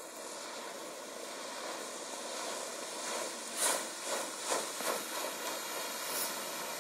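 150 hp Johnson outboard on a deck boat running at speed, heard from a distance as a steady rushing hiss of engine and water. About halfway through come four or five short, louder rushes of noise.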